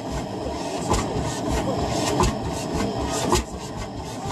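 Vintage tractor engine running at a slow, uneven idle, its exhaust beats coming as irregular knocks about twice a second.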